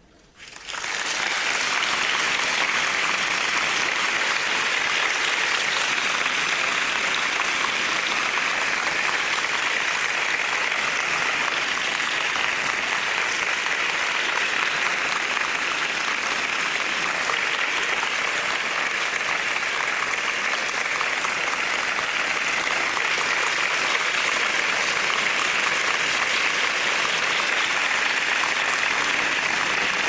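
Audience applauding: dense, steady clapping that comes in quickly within the first second and holds at an even level.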